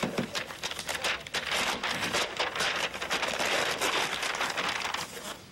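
Wrapping paper tearing and crinkling as a gift box is unwrapped and its lid lifted, a dense run of quick crackles that dies away about five seconds in.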